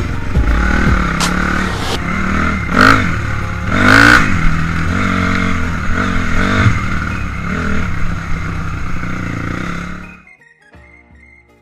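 2006 Honda CRF250R dirt bike's four-stroke single-cylinder engine revving up and down as it is ridden hard along a trail, with music behind it. The engine sound cuts off suddenly about ten seconds in.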